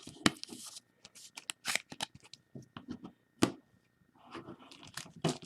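Trading cards being handled: cards sliding and being set down, with scattered light clicks and taps at irregular intervals.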